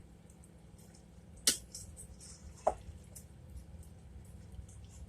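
A kitchen utensil knocks twice against a pot, the second knock with a short ring, while sauce-coated spaghetti and meatballs are stirred with faint wet squishing.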